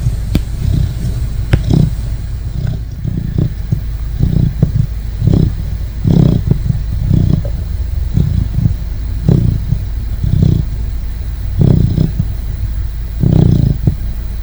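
Great Dane puppy snoring in its sleep: a regular run of low snores, about one a second.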